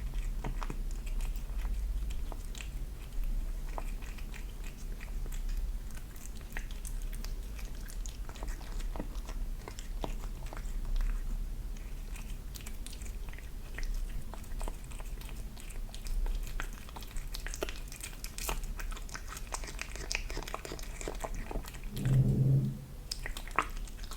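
A kitten chewing raw chicken hearts close to the microphone: irregular biting and chewing clicks over a steady low hum. A brief low-pitched sound comes about two seconds before the end.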